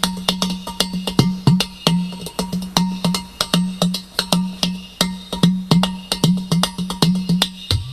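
Udu, a clay pot drum, played by hand in a fast improvised rhythm: quick, sharp taps and slaps over a steady low tone. The low tone drops lower briefly near the end.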